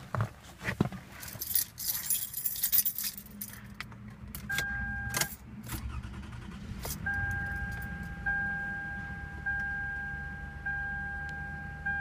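Keys jangling and clicking at the ignition, then a 2008 Toyota Solara's engine starting from cold about halfway through and settling into an idle. Over the idle, a dashboard warning chime repeats about once a second.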